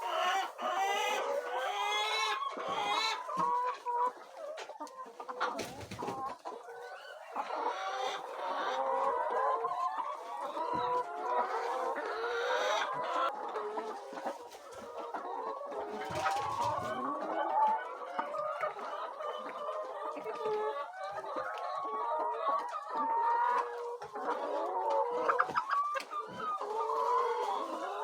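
A flock of laying hens clucking and calling, many voices overlapping without a break.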